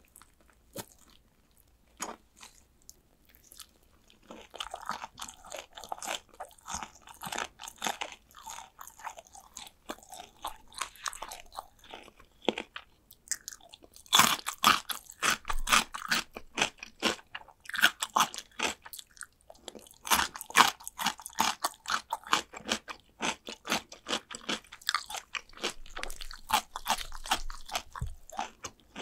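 Close-miked biting and chewing of fried chicken drumsticks, the crisp batter crunching in quick crackly bites. It starts quiet for the first few seconds, then gets denser, with the loudest crunching about halfway through and again a few seconds later.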